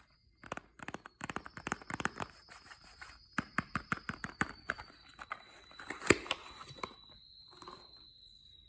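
Soap packaging being unwrapped and torn, a rapid run of crinkling crackles with a sharper snap about six seconds in.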